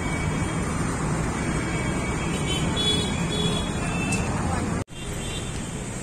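City road traffic: a steady wash of cars and other vehicles running past, mixed with people's voices. It drops out for an instant just before the end, at an edit cut.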